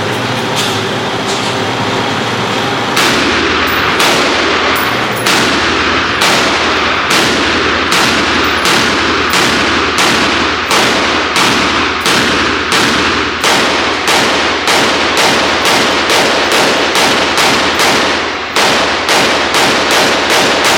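A long string of gunshots at a firing range, each a sharp crack with a short echo, starting a few seconds in at about one shot a second and speeding up to about two a second near the end.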